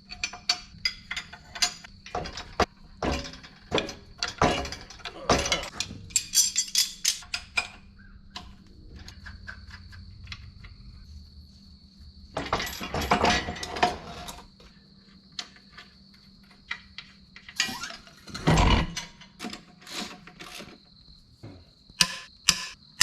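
Metal hand tools clicking and clinking against metal as the starter motor is worked off the engine, in scattered taps with two louder bouts of clanking midway and later on. A faint steady high tone runs under the second half.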